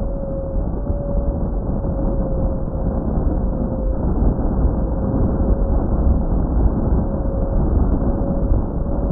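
Heewing T1 Ranger RC plane in flight, heard from a camera mounted on it: a loud rush of wind over the airframe with the steady whine of its electric motors and propellers, drifting only slightly in pitch.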